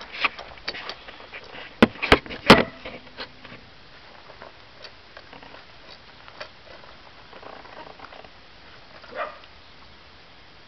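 Clicks and knocks of the camera being handled and set down, three loud knocks close together about two seconds in, then quiet with a dog barking once near the end.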